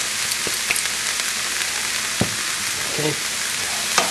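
Diced onions and garlic sizzling steadily in a nonstick skillet, with a few light knocks; near the end a wooden spoon starts stirring them through the pan.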